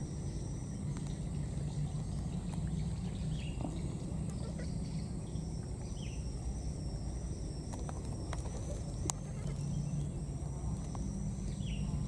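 Outdoor ambience: a steady low rumble under a continuous high-pitched trill, with three short falling chirps and one sharp click about nine seconds in.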